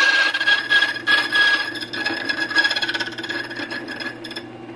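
Borkey key-duplicating machine's cutter milling a brass key blank: a harsh rasping with a steady high whine that stops about four seconds in, leaving the machine's motor humming.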